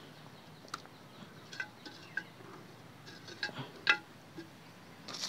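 Faint scattered scrapes and ticks of hands spreading sand over the soil in a plastic flower pot, with a few short high chirps, the clearest about four seconds in.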